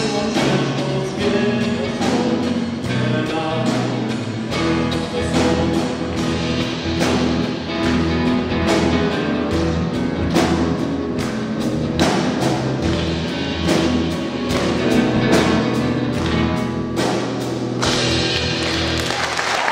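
Live band music: acoustic guitar strummed over a drum kit keeping a steady beat. The song ends right at the close, as applause begins.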